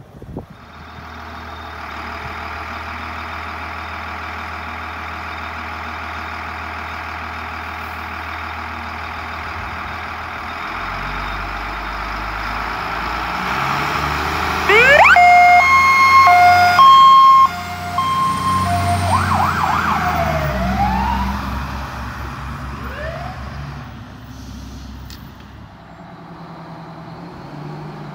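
A fire engine's diesel engine running steadily. Past the middle a siren winds up, then several air horn blasts sound over about three seconds, the loudest part, followed by rising and falling siren wails as the truck pulls away and the sound fades.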